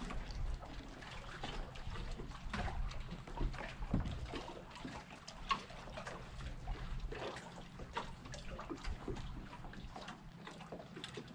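Small waves lapping against a kayak hull and a wooden dock, making irregular little splashes and light knocks.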